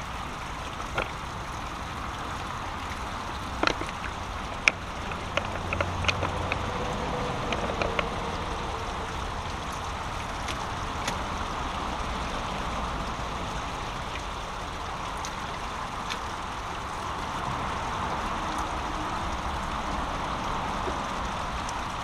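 Brook water running steadily over a small waterfall, with a scatter of sharp clicks and knocks in the first eight seconds or so.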